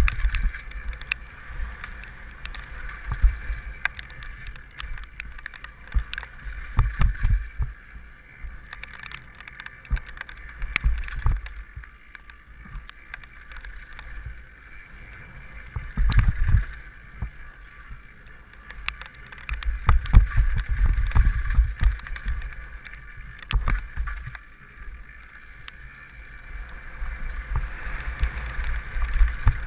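Mountain bike descending a rough dirt and gravel trail, heard through a helmet-mounted camera: wind buffets the microphone in uneven gusts of low rumble, over frequent clicks and rattles from the bike running over stones.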